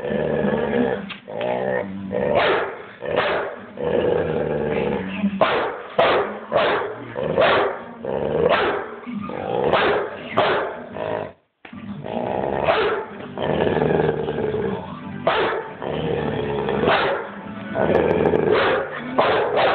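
Pit bull growling continuously at close range, breaking into sharp barks about once a second. The sound cuts out for a moment about halfway through.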